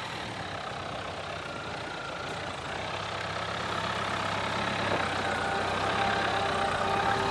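A car engine running steadily, fading in slowly and growing louder.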